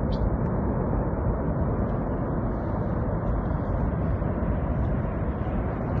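Large snow avalanche with a billowing powder cloud, rushing down the mountainside toward the listener: a steady, deep rushing noise that carries almost no high sound.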